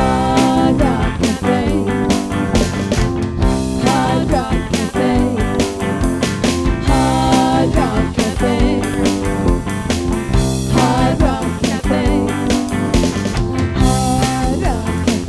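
Live rock band playing: a woman sings over electric guitar, bass guitar, keyboard and drums.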